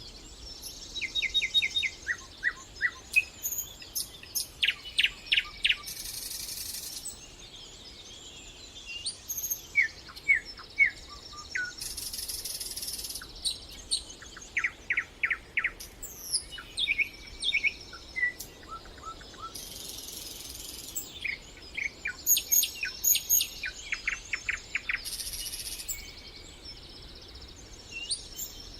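Several songbirds singing: quick series of short chirps and whistled notes, some in fast trills. Four times a buzzy, hiss-like phrase of about a second cuts in.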